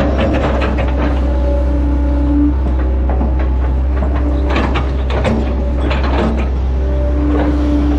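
Hitachi Zaxis 110 excavator's diesel engine running steadily under load, heard from the operator's seat, with a hydraulic whine that comes and goes as the boom and arm move the bucket. Irregular clanks and rattles from the machine run throughout.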